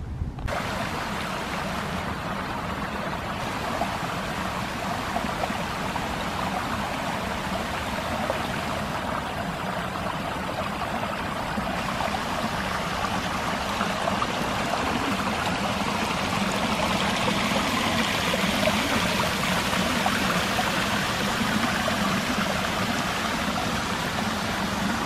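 Rain-swollen woodland creek running and splashing over rocks, a steady wash of flowing water that grows somewhat louder after about fifteen seconds.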